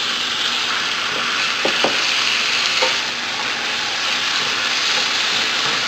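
Marinated pork frying in hot oil with garlic and onion, a steady sizzle, with a few light knocks in the first three seconds.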